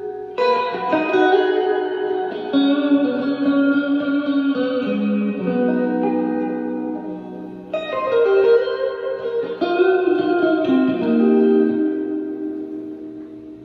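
Electric guitar played through a Fender Blues Junior tube amp with its spring reverb turned all the way up. Chords are struck a few times and left to ring in a long wash of reverb, fading away near the end.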